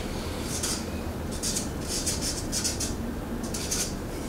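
Marker pen writing on a cut wooden disc: a run of short, scratchy strokes, several close together at times.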